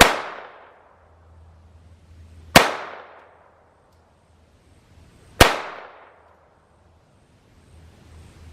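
.22 pistol firing three single shots about two and a half seconds apart, each a sharp crack with a short echoing tail.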